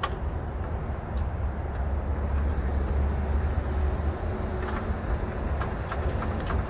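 A steady low rumble with scattered light clicks and knocks, more of them in the second half, from hands and tools working the bolts and clips on a Honda Civic's radiator support.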